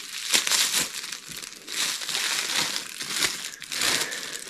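Clear plastic gift wrap crinkling in several bursts as it is pulled open by hand.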